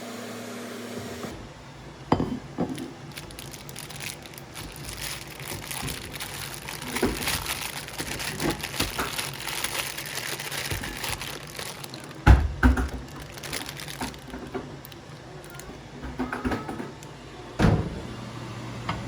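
Kikiam frying in a small GreenPan non-stick pan, a steady sizzling hiss with scattered clicks as a utensil turns them. A few louder knocks of the utensil or pan, the strongest about two seconds in, around the middle and near the end.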